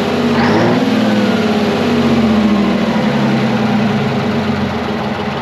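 Twin-turbo Detroit Diesel 12V71 two-stroke V12 diesel genset running steadily, the fan no longer clattering against its shroud.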